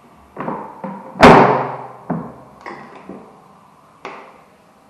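Plastic fold-down baby changing table being lowered and handled: a series of about seven knocks and clunks, with one loud slam about a second in.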